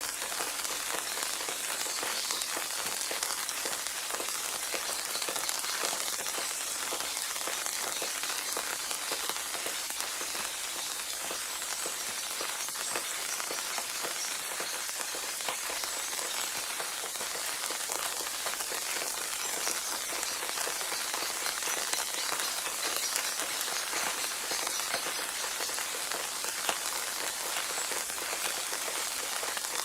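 Steady rain falling on a surface, an even hiss of many small drop ticks that holds constant throughout.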